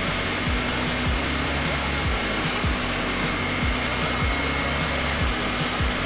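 A steady rushing machine noise, like a blower or high-pressure jet, under background music with a steady beat.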